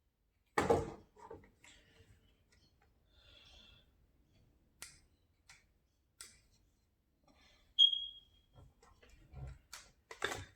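Handling noise from a Zhiyun Smooth 4 phone gimbal and its packaging: scattered clicks and knocks with soft rustling. The loudest knocks come about half a second in and just before 8 s, the second with a brief high squeak.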